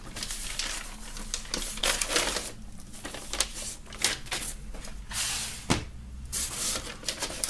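Paper rustling and scraping in a run of short strokes as a vinyl record's white paper inner sleeve and a card album cover are handled, with a few sharper taps among them.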